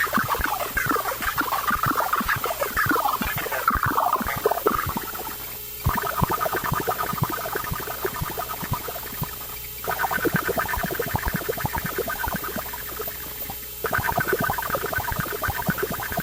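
Handmade Arduino noise synthesizer putting out a glitchy, crackling stream of clicks. For the first five seconds or so it sits over warbling, gliding chirps, then gives way to a steadier buzzing tone that breaks off and restarts about every four seconds.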